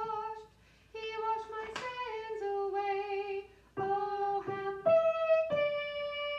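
A woman singing the soprano part in short held notes, accompanying herself on an upright piano. Two brief breaks fall about half a second and three and a half seconds in, and a long held note starts about two-thirds of the way through.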